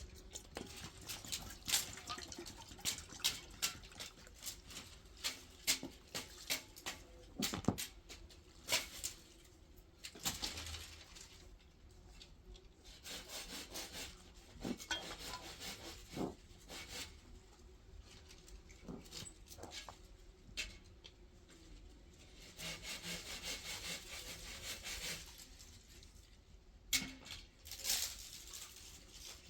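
Wood being worked by hand: scattered knocks and clatters, and longer stretches of rasping strokes like a handsaw cutting, the longest about three quarters of the way through.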